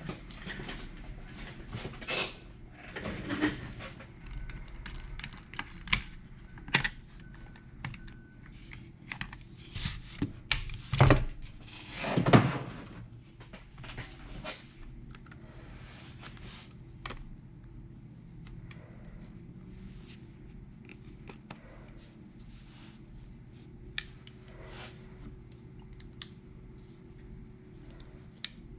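Scattered clicks, taps and rustles of small tools and parts being handled on a workbench, over a steady low hum. The handling is busiest and loudest in the first half and thins out to occasional light clicks.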